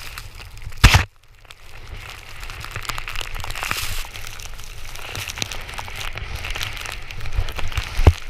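Snowboard riding through deep powder snow, with a steady crackling hiss of snow and wind on the camera and many small clicks. A loud knock about a second in is followed by a brief moment of quiet before the hiss picks up again.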